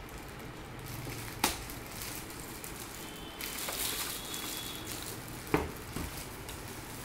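Handling of an unboxed electronic keyboard and its packaging: low rustling with two sharp knocks, about a second and a half in and again about five and a half seconds in, and a lighter one just after.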